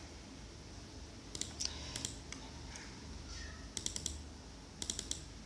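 Clicking of a computer keyboard and mouse, a few quick clicks at a time in short clusters, about one and a half, two, four and five seconds in.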